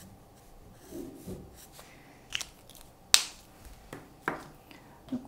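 A few short plastic clicks and taps of Prismacolor art markers being handled, as one marker is put down and another is picked from a row of markers, with one sharp click about three seconds in.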